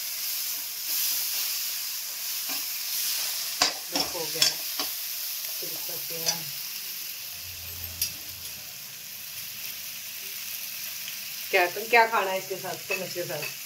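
Vegetable sabzi sizzling as it fries in a pan, with the scrape and clack of a spatula stirring it. A short stretch of a voice sounds near the end.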